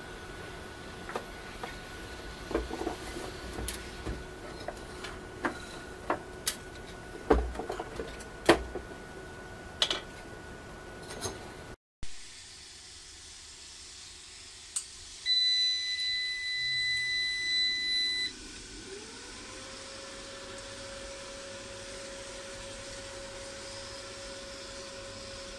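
Handling clicks and knocks around a solar inverter-charger. Then its buzzer sounds one long, steady high beep of about three seconds, and a whine rises in pitch and holds steady as the unit powers up.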